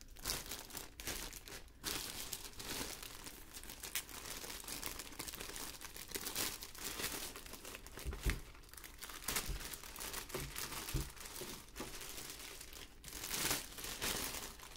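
Thin clear plastic bag crinkling and rustling unevenly as it is handled, opened and pulled away from the massage pillow inside, with a few dull knocks, the strongest about eight seconds in.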